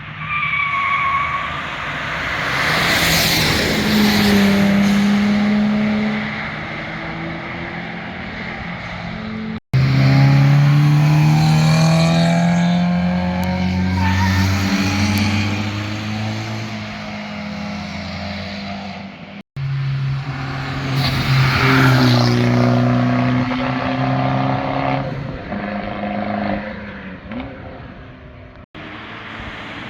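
Three sports car flybys, one after another, with the exhaust and engine loud as each car passes. The second car's engine note climbs steadily as it accelerates. Each pass is cut off abruptly.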